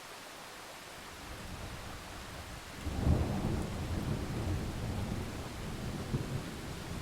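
Thunderstorm: steady rain hiss, with a low rumble of thunder building after about a second, then a loud crack near the middle that rolls on as rumbling to the end.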